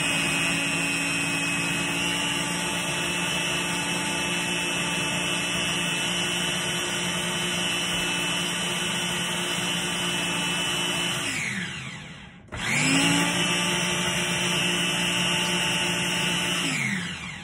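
Personal single-serve blender, its cup pressed down on the motor base, running steadily as it purées a thick avocado dressing. The motor winds down about twelve seconds in, starts straight back up, and winds down again near the end.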